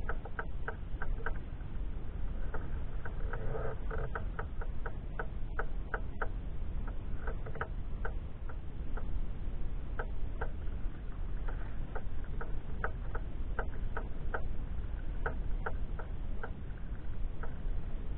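Water lapping and dripping against a sea kayak: many small irregular clicks and plinks, a few each second, over a steady low wind rumble on the microphone.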